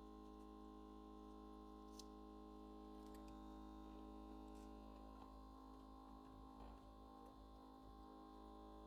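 Very faint background music with held guitar-like tones, close to silence, with one faint click about two seconds in.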